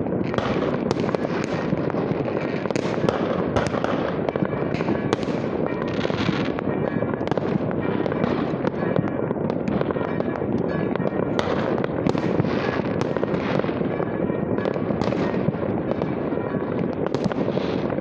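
Fireworks going off in many places at once across a city: a continuous barrage of overlapping bangs, pops and crackles with no break.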